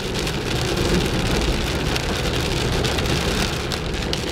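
Rain falling steadily on a moving car, with road and engine noise underneath, heard from inside the cabin.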